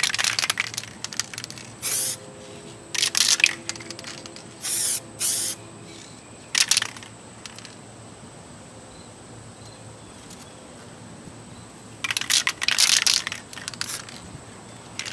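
Aerosol spray can of touch-up paint spraying in short bursts of hiss, most under a second long, with a longer pass of about two seconds near the end.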